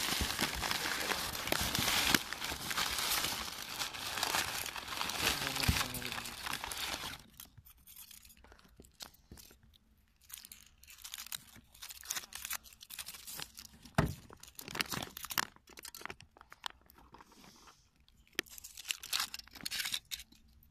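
Foil wrapper of a Kinder Surprise chocolate egg being crinkled and torn off by hand: dense crinkling for the first seven seconds or so, then sparser crackles and snaps of foil.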